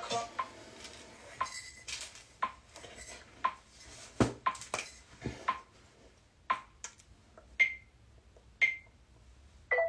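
A regular run of sharp clinking clicks, about one a second, each with a short ringing tone.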